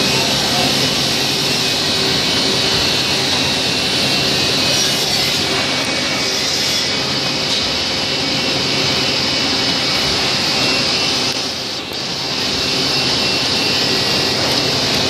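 Automatic woodworking drilling machine running, a loud steady mechanical noise with a motor hum underneath, dipping briefly about twelve seconds in.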